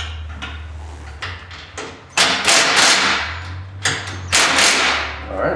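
Cordless impact driver run in two short bursts on the leaf-spring bolts, the first a little over a second long, the second shorter, with a few light tool clicks before them.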